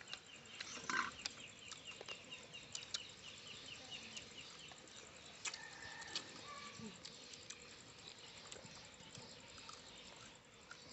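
Faint outdoor yard ambience: a rapid series of high chirps, about four a second, through the first few seconds, with scattered faint clicks.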